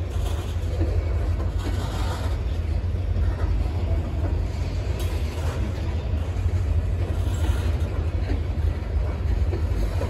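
Freight train's covered hopper cars rolling past, a steady rumble of steel wheels on the rails.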